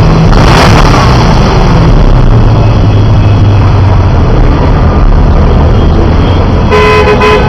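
Gumpert Apollo's twin-turbo V8 running loud, with a short rev blip about half a second in, then a steady deep idle. Near the end a horn sounds in several short toots.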